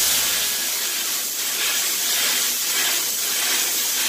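Sandblast cabinet nozzle firing 80-grit aluminum oxide at 80 PSI onto a factory-nitrided barrel: a loud, steady hiss of air and abrasive as the grit strips the nitride finish.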